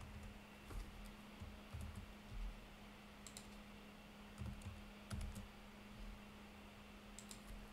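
Faint typing on a computer keyboard: scattered keystrokes in small groups with pauses between them, over a steady low hum.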